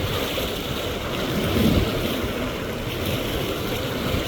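Ocean surf washing over the rocks of a jetty, a steady rushing wash that surges slightly near the middle, with wind buffeting the microphone.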